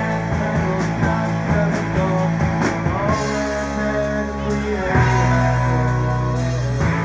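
Live rock band playing: electric bass, electric guitars and drum kit. Steady drum beat for the first three seconds, then long sustained notes with only a few drum hits.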